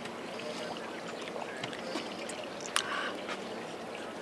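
Steady sound of water lapping gently against a moored yacht's hull, with one sharp click a little under three seconds in.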